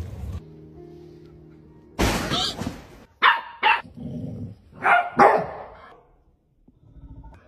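A dog barking: one longer harsh bark about two seconds in, then four short, sharp barks in two quick pairs.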